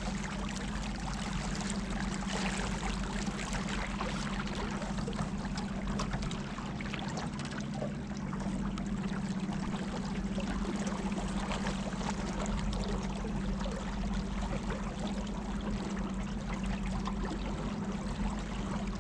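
Motorboat underway: a steady engine hum under water rushing and splashing along the hull.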